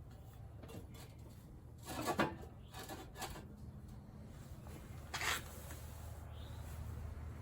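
Quiet handling noises over a low steady hum: a short clatter about two seconds in and a brief scrape or knock just past five seconds.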